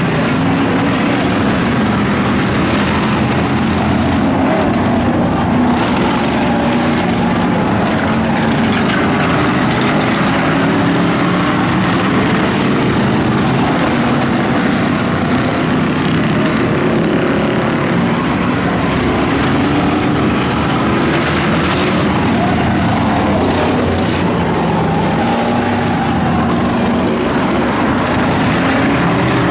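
Several V8 race car engines running together at speed in a steady, dense drone, with overlapping engine notes that rise and fall slightly as cars circle.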